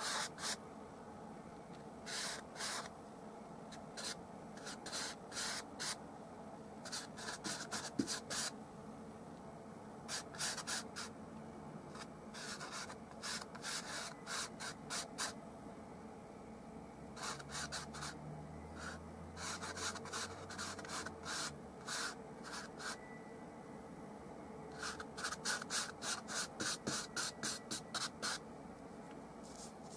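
Large flat bristle brush scrubbing oil paint onto a textured canvas: short rasping strokes, several a second, in bursts with pauses between them.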